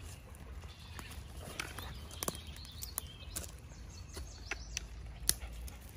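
Quiet outdoor ambience: a low steady rumble, scattered light clicks and rustles, and a few faint bird chirps about two seconds in.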